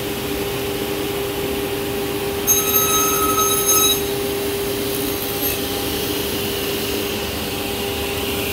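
Martin T60C sliding table saw running steadily with a constant motor hum. About two and a half seconds in, a louder stretch with a high whine lasts about a second and a half.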